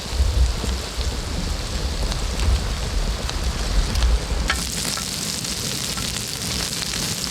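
Makchang (pork intestines) and green onions sizzling and crackling in a hot pan, over a low rumble. About four and a half seconds in, the rumble drops away and the sizzle grows brighter.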